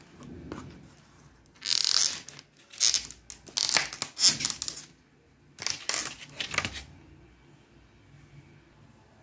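Clear plastic blister packaging crackling and crinkling as it is flexed in the hands, in four bursts between about two and seven seconds in.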